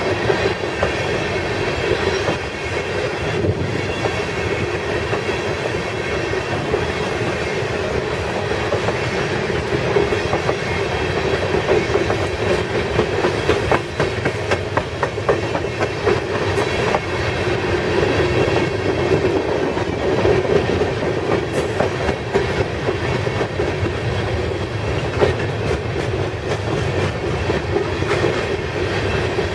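Open-top sulfur hopper cars of a freight train rolling steadily past: a continuous rumble of steel wheels on rail with scattered clicks as the wheelsets cross the rail joints.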